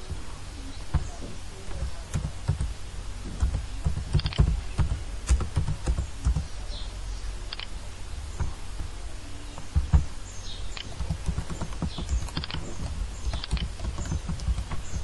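Computer keyboard typing and mouse clicks, irregular and unevenly spaced, over a steady low hum.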